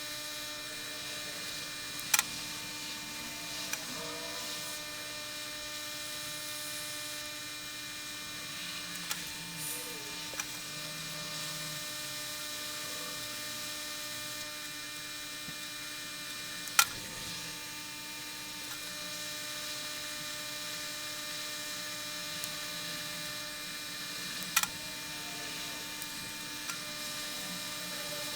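Steady electrical hum made of several held tones, with a few sharp clicks or taps over it, the loudest about two-thirds of the way in.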